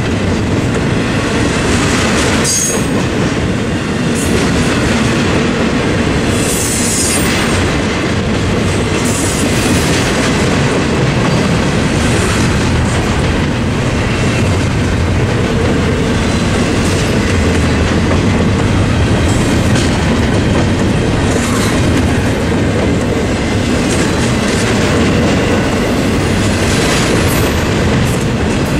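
Norfolk Southern double-stack intermodal freight train rolling steadily past: continuous loud rumble of well-car wheels on the rails with clickety-clack at the rail joints. A few brief high wheel squeals rise above it.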